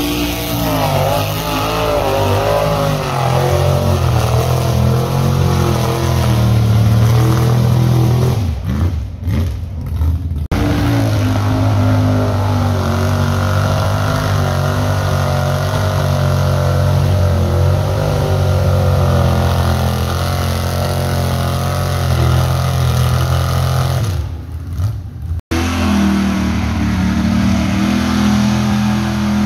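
Mud truck's engine revving hard under load, its pitch wavering up and down. It drops off twice, about nine seconds in and again about twenty-four seconds in, as the throttle is let off, then picks back up.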